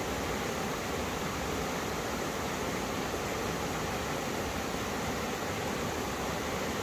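Mountain stream water rushing over rocks where two valley streams meet, a steady, even rush of water.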